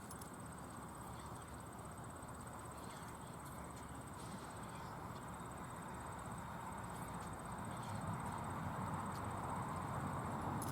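STH-10 outdoor warning siren sounding, its wail swelling gradually louder toward the end as the rotating horn swings round. A faint high, steady insect trill runs underneath.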